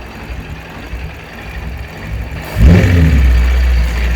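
Toyota 1UZ-FE V8 in a Mazda Miata comes up loudly about two and a half seconds in with a brief rise in pitch, then runs steadily. It is being run to listen for a rattle from the front of the engine, which the owner suspects is a loosened pulley, the alternator or a timing pulley.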